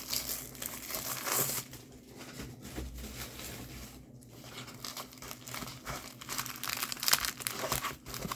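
Packaging of a diamond painting kit being handled and opened: irregular crinkling and some tearing, with the crinkles growing denser near the end.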